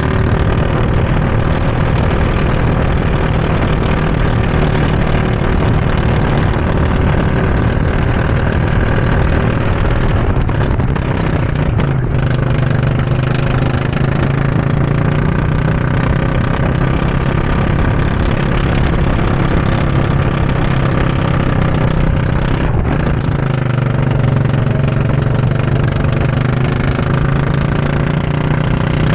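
Go-kart engine running hard at racing speed, heard from the driver's seat. Its pitch drops and climbs again several times as the kart slows for corners and accelerates out of them.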